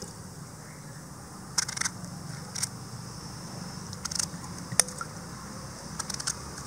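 Kitchen knife cutting a small brinjal (eggplant) held in the hand into wedges: a few crisp, sharp cuts scattered over several seconds, the sharpest about two-thirds of the way through, over a steady low hum.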